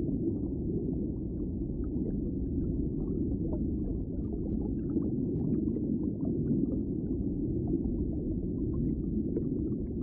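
Underwater ambience: a steady low rumble with faint, scattered clicks and crackles.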